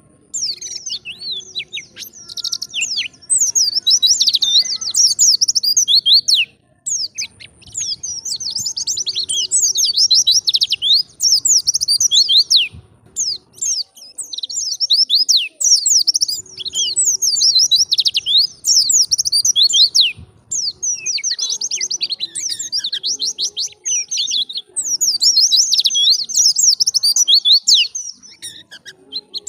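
White-eye (pleci) singing: long runs of rapid, high twittering lasting a few seconds each, broken by short pauses.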